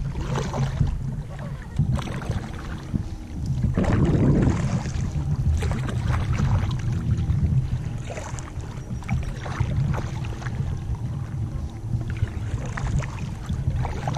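A kayak being paddled: paddle blades splashing and dripping in the water with scattered light knocks, under a steady low rumble of wind on the microphone of a bow-mounted GoPro.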